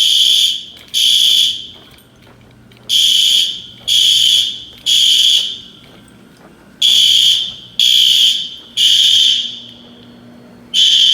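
Hotel fire alarm horn sounding the temporal-three evacuation pattern: three loud, high-pitched beeps about a second apart, then a pause of about a second and a half, repeating.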